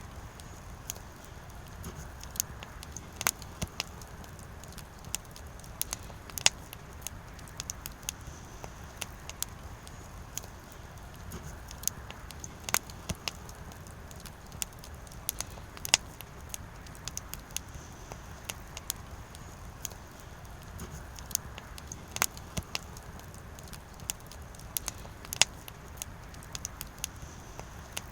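Firewood burning, crackling with irregular sharp pops and snaps over a low, steady rumble of the flames.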